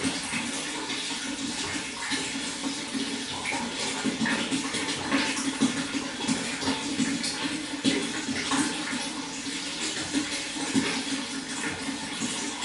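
Running water flowing and splashing steadily, with a constant rush and many small irregular splashes.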